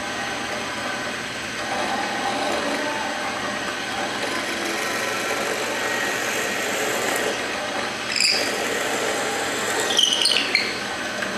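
Shopsmith drill press running steadily, its bit boring a hole into wood held in a tilted guide. Two brief high squeaks come about eight and ten seconds in.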